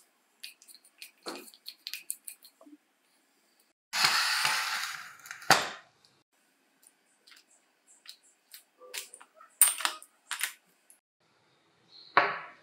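Small steel impact-driver parts being handled and set down on a wooden workbench: scattered light clicks and taps. A brief rushing noise about four seconds in ends in a sharp knock, and a duller knock comes near the end.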